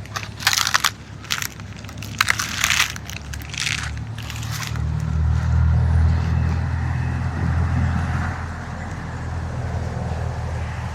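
Footsteps crunching on dry leaves, four steps in the first half. After them a steady low rumble swells and holds.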